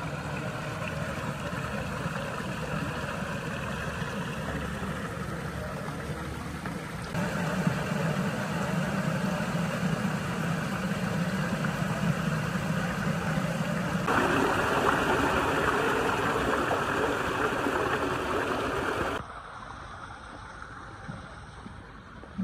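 Muddy clay water running steadily through a channel and into a settling pit, with a steady low hum beneath. It grows louder about 7 seconds in and drops suddenly about 19 seconds in.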